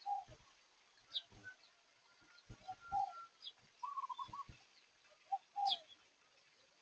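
Birds calling: several short mid-pitched calls, some with a quick warble, and a few quick high falling chirps, with soft low thumps scattered between them.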